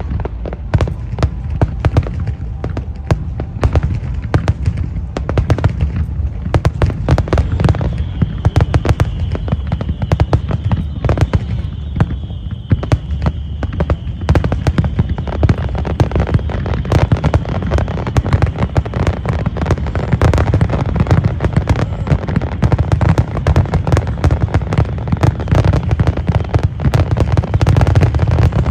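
Fireworks display: a dense, continuous barrage of bangs from shells bursting one after another, with a deep rumble beneath. A thin, steady high whistle runs through the middle for about ten seconds.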